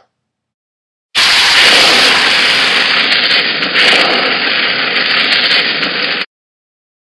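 Fire sound effect: a steady rushing burn of flames, starting about a second in and lasting about five seconds before cutting off suddenly.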